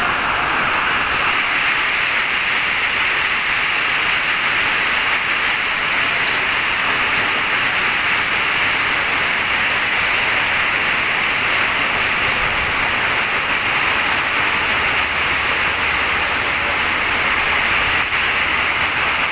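Steady, unbroken rushing of falling water.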